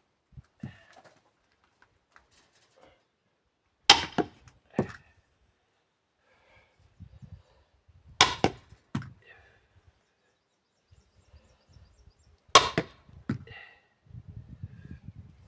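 A 5 kg sledgehammer striking a steel splitting wedge driven into an oak log, three heavy blows about four seconds apart, each with a brief metallic ring and followed by a lighter second knock. The wedge is being driven in to split the log.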